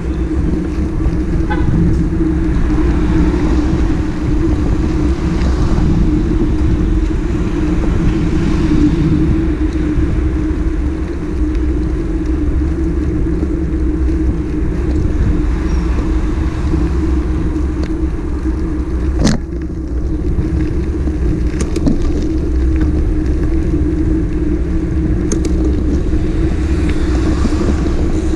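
Motorcycle on the move, its engine note held steady over a heavy low rumble. A sharp click comes about nineteen seconds in.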